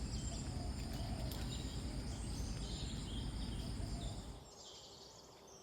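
Outdoor ambience: a steady low rumble with scattered short, high bird chirps. About four seconds in, the sound drops away to a faint hush for over a second.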